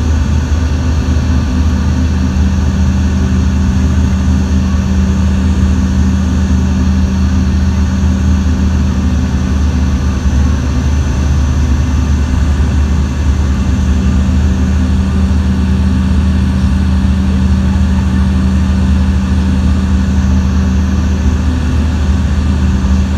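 Steady drone of an airliner's engines heard from inside the passenger cabin, a loud low hum with a constant rushing noise over it.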